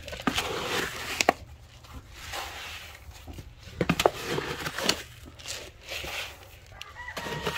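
A plastic scoop digging into dry chicken feed in a plastic bucket and the feed poured into a feeding bowl: grain rustling and scraping in several short goes, with a few sharp clicks of the scoop against the bucket.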